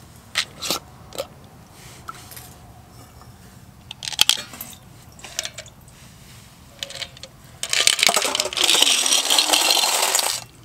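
Steel sockets clinking and rattling against a glass jar and a stainless steel strainer as they are tipped out. About eight seconds in, a loud rush of liquid splashing into the strainer runs for nearly three seconds and cuts off sharply.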